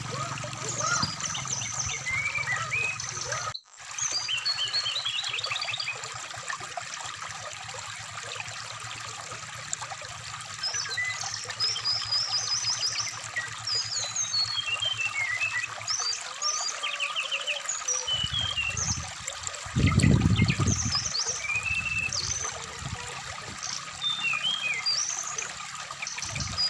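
Brown-chested jungle flycatcher song: many quick chirps, short whistles and fast trills, over the steady trickle of a shallow stream. The sound cuts out for an instant about three and a half seconds in, and a louder low rumble comes about twenty seconds in.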